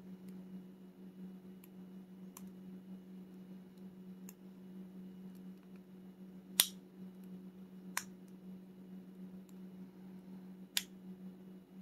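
Lock picking on an American Lock Series A1100 five-pin padlock: scattered small clicks of the pick and tension tool working the pins, with three sharper clicks in the second half. A steady low hum runs underneath.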